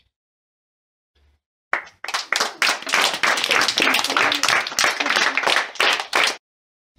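A group of children clapping in applause, starting about two seconds in and cutting off suddenly about a second before the end.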